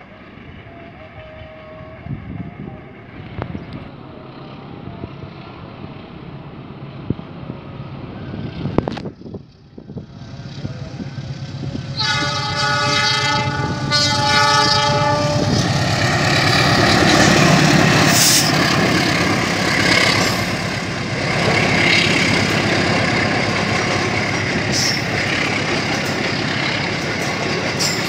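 A distant diesel train rumbles at first. About halfway through, a GE CC206 diesel-electric locomotive sounds its multi-tone horn for about three seconds, then runs past close by, its engine running and the coach wheels clacking over the rail joints.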